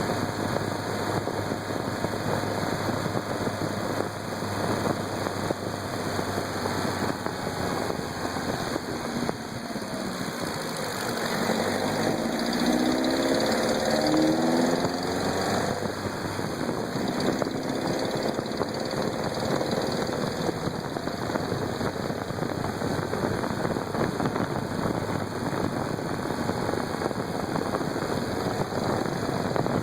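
Vehicle engine running with a knocking noise. Its pitch rises and falls again near the middle, as if briefly revved.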